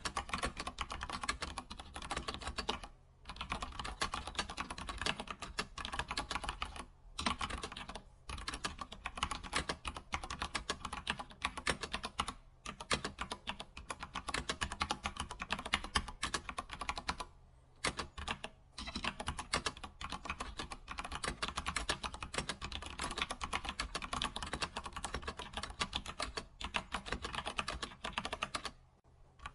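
Fast, continuous typing on a computer keyboard: a dense run of key clicks, broken every few seconds by a brief pause.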